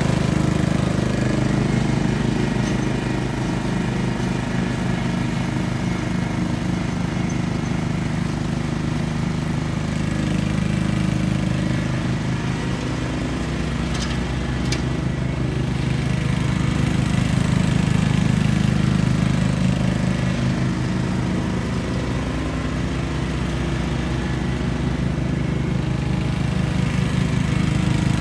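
Simplicity Coronet rear-engine riding mower running steadily as it mows, its level falling and rising again as the mower moves around the lawn. Two faint ticks about halfway through.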